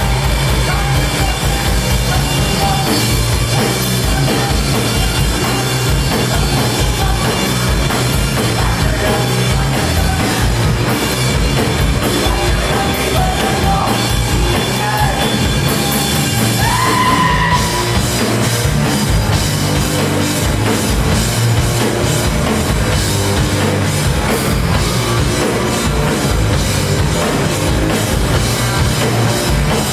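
Rock band playing live on electric guitars, bass guitar and drum kit: loud, dense and steady, with a rising note a little past halfway.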